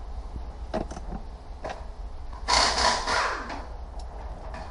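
Hands working on the plastic evaporator/heater case and wiring behind a stripped-out dashboard: a few light clicks and knocks, then about a second of loud scraping and rustling past the halfway point.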